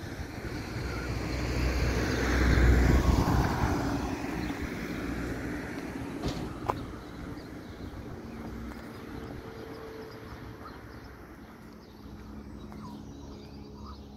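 A car passing along the street: its tyre and engine noise swells over the first few seconds, then fades away. A single sharp click follows a little later.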